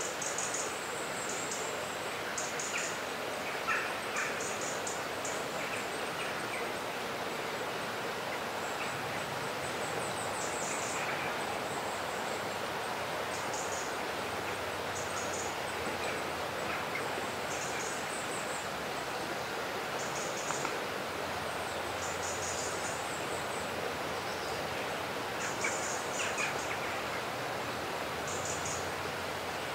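Birds chirping in short, very high bursts every second or two over a steady hiss.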